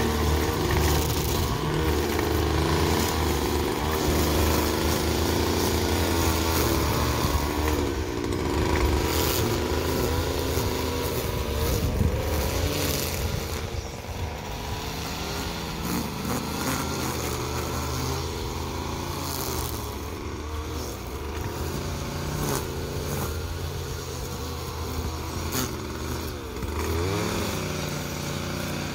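Gas string trimmer's small engine running loudly as the line cuts grass, its revs rising and falling as the throttle is worked, with a clear swing about a second or two before the end.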